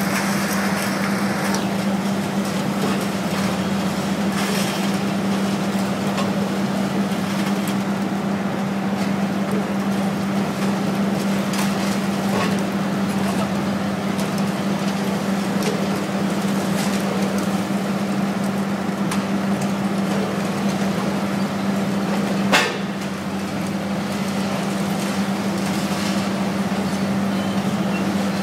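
Long-reach demolition excavator running with a steady engine hum while it breaks up a brick and concrete building, with scattered knocks and clatter of falling debris. One sharp crash stands out about three-quarters of the way through.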